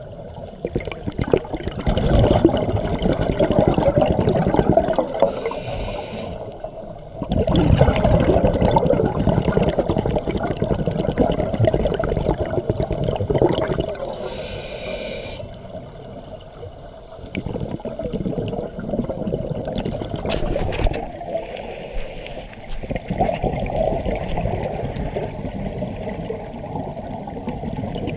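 Scuba diver breathing through a regulator, heard underwater: a short hiss on each inhale, three times, each followed by several seconds of rumbling exhaled bubbles.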